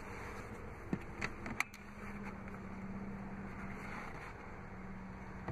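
A few sharp plastic clicks and knocks a second or so in, as the Ram 1500 crew cab's rear fold-out floor panel and in-floor storage bin lid are handled, over a steady low hum.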